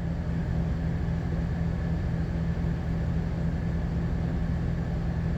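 Steady low drone of a car's interior: engine hum and road or air noise, unchanging throughout.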